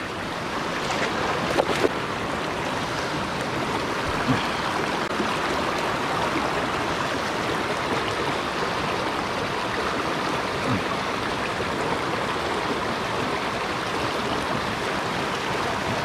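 A small rocky mountain stream rushing over stones and a little cascade: a steady, even rush of water.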